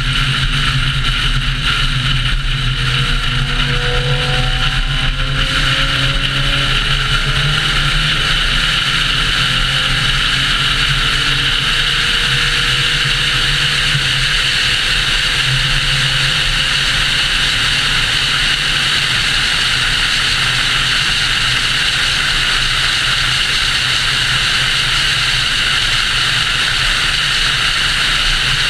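A car cruising at highway speed, with a steady rush of road and wind noise. A few faint gliding tones come and go in the first several seconds.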